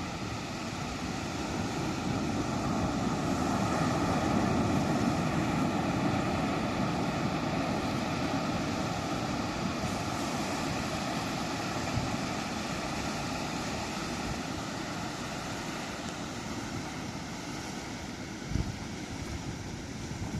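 Sea waves breaking slowly: a long wash of surf that swells over the first few seconds and then slowly fades. A brief low thump comes near the end.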